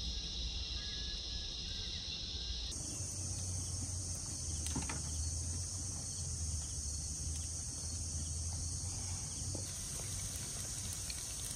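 Steady high-pitched chorus of crickets and other insects, its pitch stepping up about three seconds in, with a few faint crackles from the wood fire under the pan.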